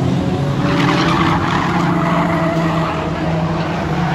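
Several small hatchback race car engines running as they lap an oval track, with a rush of tyre skidding from about half a second in until about two seconds.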